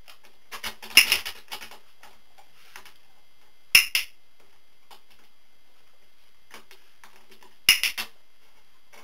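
Dog-training clicker clicking in three short bursts about three seconds apart, each a sharp click-click of press and release, marking the dog's correct behaviours on the wobble board.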